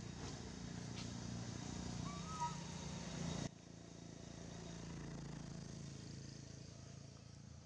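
Low steady hum of a distant vehicle engine, with a few faint ticks and one short warbling chirp about two and a half seconds in. The whole background drops suddenly about three and a half seconds in, leaving a quieter low rumble.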